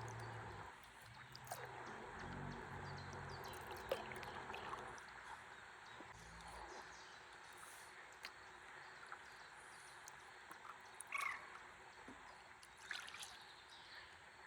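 Faint river water flowing and lapping around a stand-up paddleboard as it drifts, a steady gentle wash. A few faint ticks and a couple of short chirps come through in the second half.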